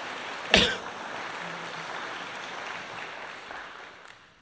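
Congregation applauding, with one sudden loud sound about half a second in; the applause dies away near the end.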